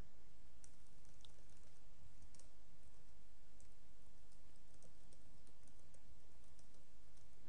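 Faint computer keyboard typing: light, scattered key clicks at an uneven pace, over a steady low background hum.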